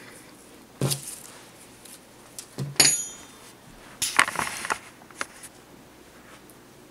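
Handling noise at a table: a few light knocks and rustles of yarn, with a short metallic clink and brief ring about three seconds in as a metal crochet hook is set down on the wooden tabletop. More soft knocks and rustles follow a second later.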